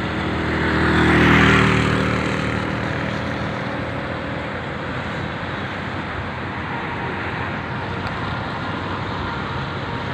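A motorcycle passing close on a wet road: its engine note and tyre hiss rise to a peak about a second and a half in and fade away. Steady street noise continues underneath.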